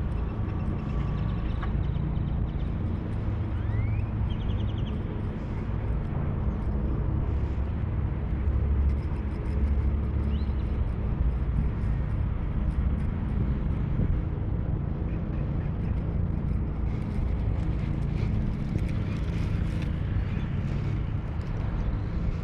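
A steady low rumble with a constant low hum under it, and a couple of brief high chirps.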